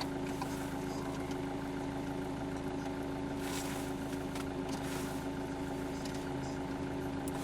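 Steady hum of a Renault Laguna estate idling, heard from inside the cabin. It holds a few fixed tones with no change in pitch.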